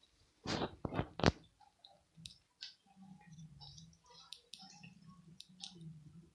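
Cats crunching dry kibble from plates: small, irregular, crisp clicks of chewing. About a second in, a rustle and two loud knocks stand out above it.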